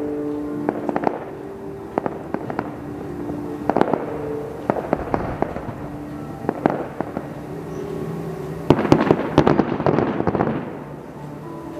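Aerial fireworks going off: a string of sharp bangs, then a dense, rapid run of pops and bangs about nine seconds in. Music plays underneath.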